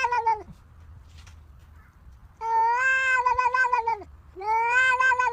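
A cat meowing in long, drawn-out calls: one ends about half a second in, then two full meows follow, each about a second and a half long with a quiet gap between.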